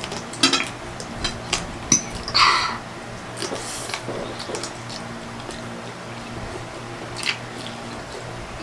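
Close-up eating sounds: chewing and biting into fried chicken, with wet squishy mouth noises and spoons and forks clicking against plates several times.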